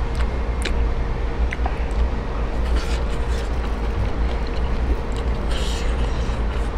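Steady low rumble of street traffic, with a faint steady hum and scattered small clicks and smacks of eating close to the microphone.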